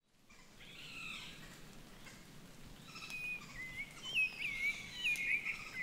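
Birdsong: a faint call about a second in, then a run of short whistled chirps and sliding notes from about three seconds in, growing louder, over a faint steady hiss.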